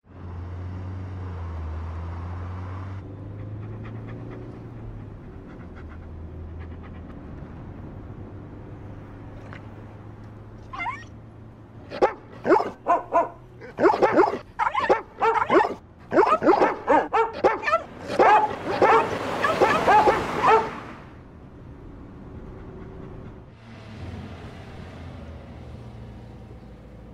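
Several dogs howling and barking together for about eight seconds in the middle, in short bursts and longer pitch-bending howls. A low car rumble is heard at the start and again near the end.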